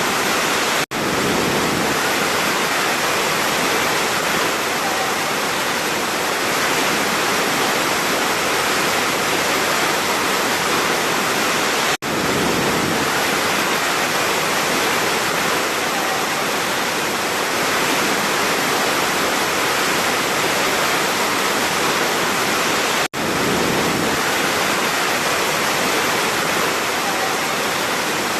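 Large waterfall: a steady, dense rush of falling water, broken by three very brief dropouts, about a second in, near the middle and about four-fifths of the way through.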